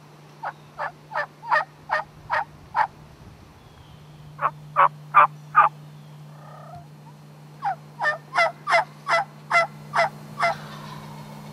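Wild turkey yelping: three runs of short, evenly spaced yelps at about three a second, the first and last of about eight notes and the middle one of four. A steady low hum runs underneath.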